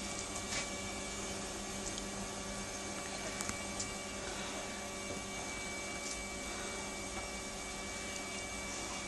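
A steady hum with a higher, thinner tone over a background hiss, broken by a few faint clicks.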